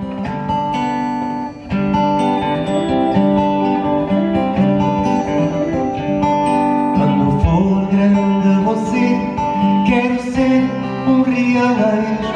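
Live band music: plucked acoustic guitar over an electric bass line, playing a song.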